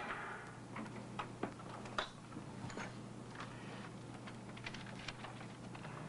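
Scattered light clicks and taps at irregular intervals over a low steady hum.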